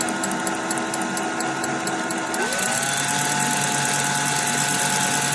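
Cordless drill motor running steadily as it spins the core wires while fine wire is wrapped onto them from a hand-held spool, making a fused Clapton coil. The whine jumps up in pitch a little over two seconds in as the drill speeds up, with a fast light ticking in the first half.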